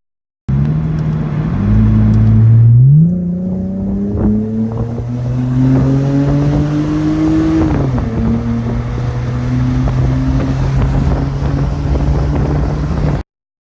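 Lexus GS300's 2JZ-GE straight-six running through Jones Racing resonators in place of the stock mufflers on stock piping. The exhaust note climbs in pitch, loudest about two to three seconds in, keeps rising slowly, then drops suddenly in pitch about eight seconds in and runs steadier until it cuts off abruptly.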